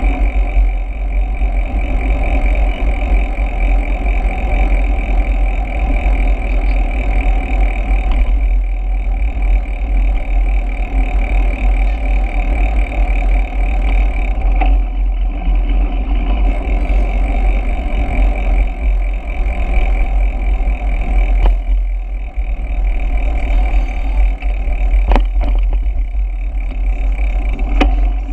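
Steady, heavy wind noise on the microphone of a camera riding on a moving bicycle, with a few sharp clicks in the second half.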